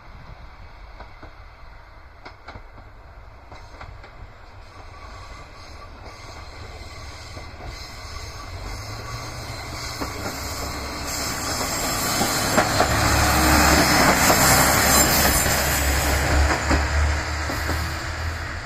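Diesel railcar approaching and passing, its wheels and engine growing steadily louder to a peak about two thirds in, then beginning to fade, with a steady low engine hum under the wheel noise.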